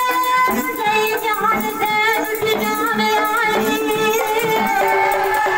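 A man singing a Bundeli gote, a folk devotional song, in long held notes with wavering ornaments, over a hand drum beating steadily underneath.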